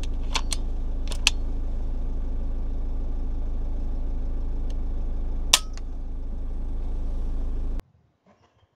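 Car engine idling steadily, heard through the open driver's window, with a few sharp clicks in the first second and a half and another about five and a half seconds in. The hum cuts off abruptly near the end, leaving near silence.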